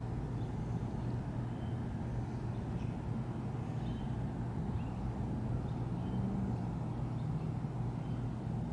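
Steady low mechanical hum, like a running motor or traffic, with a few faint high chirps now and then.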